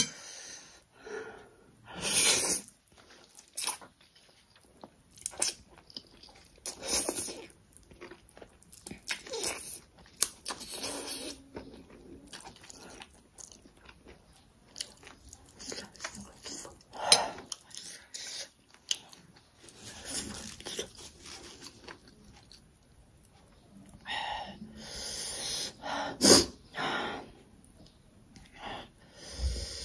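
Close-up chewing of black bean instant noodles, wet mouth noises in irregular bursts, some of them sharp and loud.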